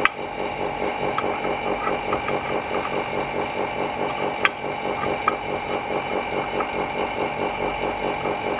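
A small motor-driven screen-refurbishing machine running steadily with a fast, even pulsing of about six beats a second, with a few sharp clicks, one at the start and two more about halfway through.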